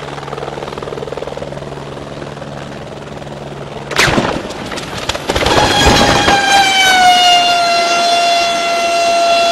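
A helicopter's rotor and engine run steadily, then about four seconds in there is a sharp crash as it strikes the ground, followed by a loud clatter of breaking rotor blades and wreckage. From about five seconds in, the turbine's high whine drops slightly in pitch and then holds steady.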